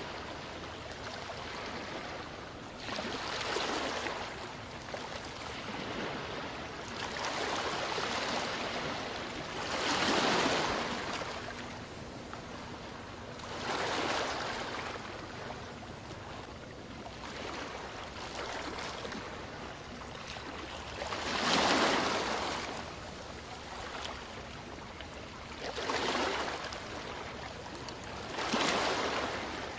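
Small waves washing onto a sandy beach, each surge rising and falling away every three to four seconds.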